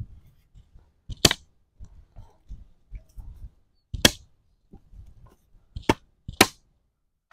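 Food being cut without a kitchen knife: four sharp clacks, the last two close together near the end, with softer knocks and low thuds in between.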